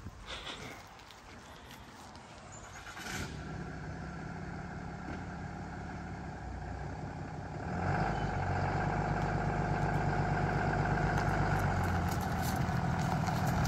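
Tow vehicle's engine running under load as it pulls the boat trailer. It comes in about three seconds in and grows louder and heavier about eight seconds in.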